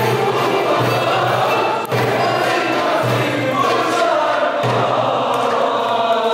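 Mixed choir of women and men singing a Turkish classical art song with a small ensemble of violins and kanun, a low beat pulsing about once a second underneath.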